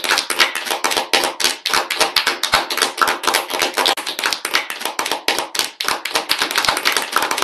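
Applause: many hands clapping together, dense and steady.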